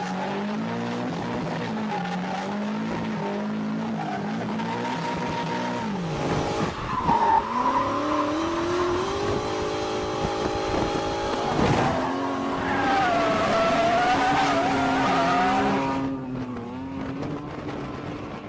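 A drift car's engine revving hard, its pitch rising and falling with the throttle and dropping sharply twice, while the tyres squeal and skid. The sound fades away near the end.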